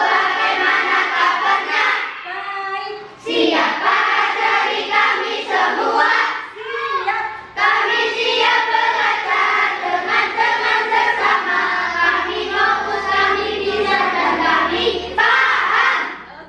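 A class of children singing together in chorus, with short breaks between phrases.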